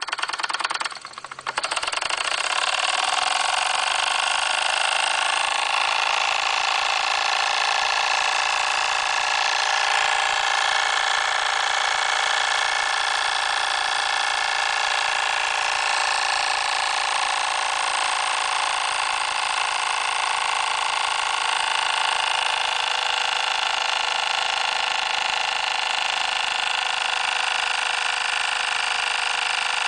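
Jensen model steam engine running on steam from its electrically heated boiler. After a brief lull it settles, about a second and a half in, into a steady, even mechanical running sound.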